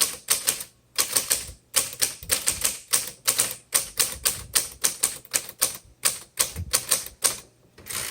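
Manual typing on a 1956 Royal Quiet Deluxe portable typewriter: a quick, steady run of key strikes, about four a second, which stops near the end.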